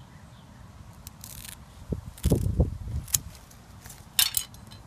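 Scissors snipping through a strip of vinyl lawn-chair webbing in a few short cuts, with dull knocks and handling noise as the cut strip is moved around. The knocks, about halfway through, are the loudest part.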